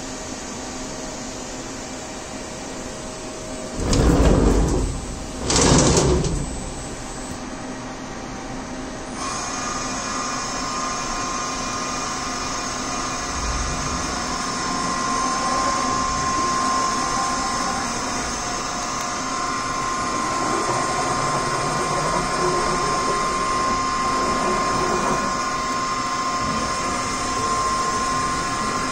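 Vertical machining center running: a steady mechanical hum, with two loud bursts of noise, each under a second, about four and six seconds in. From about nine seconds a steady whine joins in and holds to the end.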